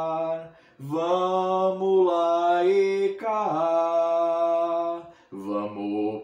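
A man singing an Umbanda ponto, a devotional hymn, without accompaniment. He holds long, slow notes that step from one pitch to another, with short breaks for breath about half a second in and again about five seconds in.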